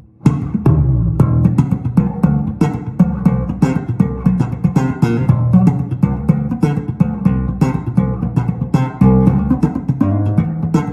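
ESP electric bass guitar being played: a busy run of quick plucked notes with sharp attacks, starting just after the opening.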